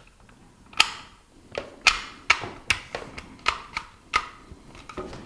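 Novritsch SSX23 airsoft pistol parts clicking and knocking together in the hands as the upper assembly is worked into the frame: about ten sharp, irregular clicks.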